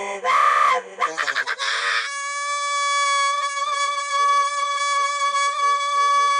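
A man's laughter, slowed and smeared by time-stretching, in which he struggles for breath. For about the first second it comes as pulsing laugh bursts, then a quick flutter. From about two seconds in it turns into one long, steady, reedy held tone, like a harmonica drone.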